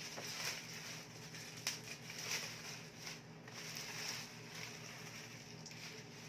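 Packaging being handled as a box is unpacked by hand: irregular rustling, with a sharp click about one and a half seconds in.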